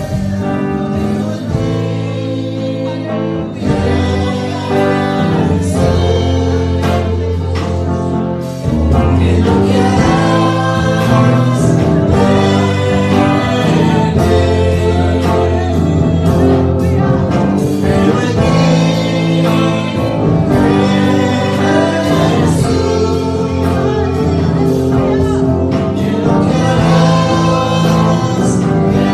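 A girl and a man singing a gospel worship song into microphones, with musical accompaniment. The music gets fuller and louder about eight and a half seconds in.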